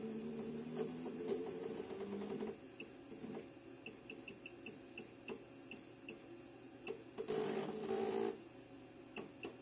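Short high beeps from a pattern tacker's touchscreen programmer as its arrow keys are pressed to jog the stitch point. The beeps come in a quick run of about four a second around the middle, with a few more near the end. A machine whirs steadily at the start and more loudly for about a second, seven seconds in.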